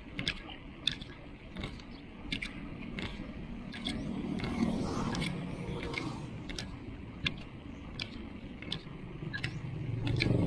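A bicycle being pedalled, with a sharp click about every 0.7 s, over a low rumbling ride noise that swells about four seconds in and again near the end.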